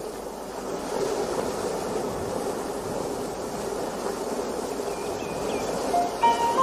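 Sea waves washing on a shore: a steady rushing surf that fades in. Near the end, music starts with a few held notes.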